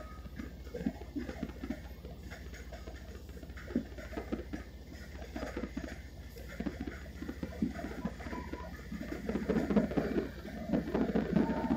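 MBTA commuter rail train rolling slowly past: irregular clicks and clunks of the wheels over the track, over a steady low rumble, getting louder in the last few seconds as the locomotive comes by. A steady high tone joins near the end.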